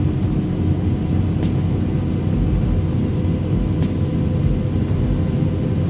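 Sany SY215C excavator's diesel engine running steadily at about 1,800 to 1,900 rpm during engine calibration, its speed creeping up slowly on throttle dial step 8, heard from inside the cab.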